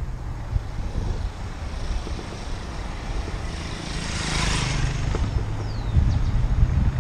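A motorcycle engine running as the motorcycle passes going the other way. Its noise swells to a peak about four and a half seconds in, then eases off.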